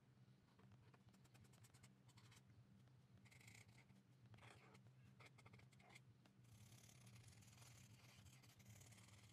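Faint scratching of an Ohuhu alcohol marker's nib stroking back and forth across sketchbook paper, in quick strokes that come thicker in the second half, over a low steady hum.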